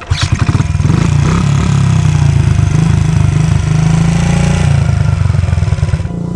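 Honda CRF50 dirt bike's small single-cylinder four-stroke engine running, starting abruptly and going on steadily and loud.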